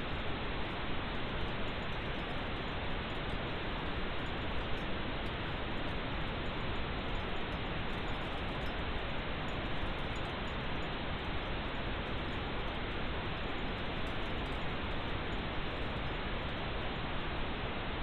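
Steady pink noise: an even, unchanging hiss.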